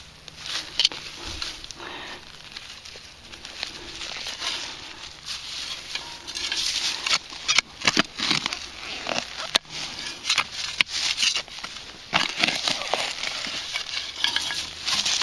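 A hand digging tool cutting and scraping through soil, with irregular crunches and sharp knocks, getting busier and louder about six seconds in.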